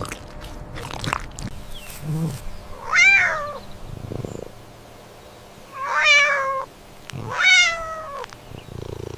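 An animal calling three times in short, falling, meow-like cries, the second and third close together.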